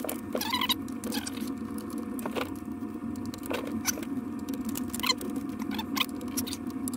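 Small clicks and rattles of cables and connectors being handled during wiring work, with a few brief squeaks, over a steady low hum.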